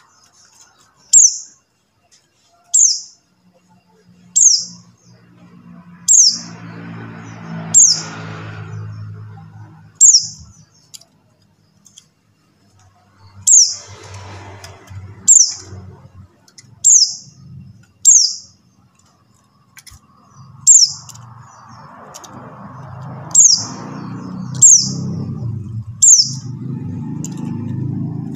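Buxtoni white-eye (pleci buxtoni) calling: a single short, high note that slides sharply downward, repeated about every one and a half seconds with a brief pause near the middle. A low rumbling background noise swells in and out behind the calls and grows toward the end.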